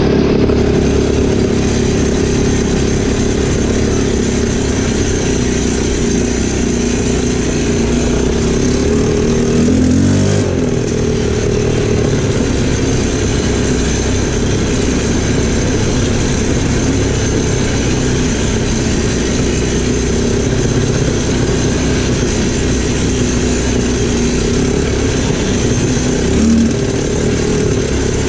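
Linhai 300cc 2x4 ATV's single-cylinder four-stroke engine running steadily as the quad rides along a dirt trail, with a brief rev about ten seconds in.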